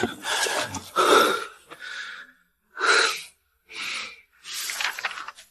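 A person breathing heavily in a series of loud, gasping breaths, about one a second.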